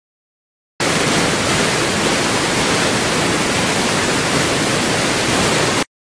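A loud, even burst of static hiss that switches on abruptly about a second in and cuts off just as suddenly near the end, with dead silence either side.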